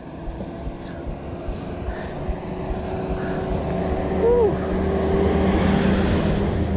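Minibus engine running as the bus comes up the road and passes close by, growing steadily louder over several seconds.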